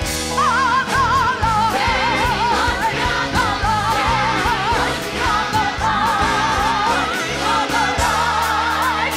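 Stage musical number: a woman sings the lead with wide vibrato over a band with a steady beat.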